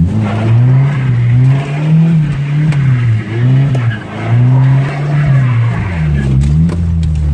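Ford Ranger pickup's engine revving up and down repeatedly while it is driven hard, its pitch rising and falling every second or so, with tyre skid noise from drifting on wet pavement.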